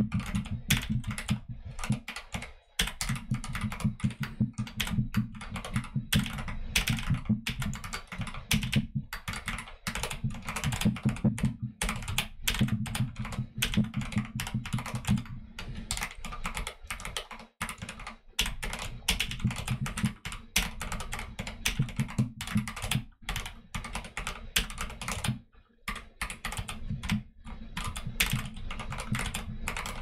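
Fast, continuous typing on a custom YMDK Wings mechanical keyboard with Akko Jelly Black switches, a rapid clatter of keystrokes. It breaks off briefly about two and a half seconds in, near 17 seconds and about 25 seconds in.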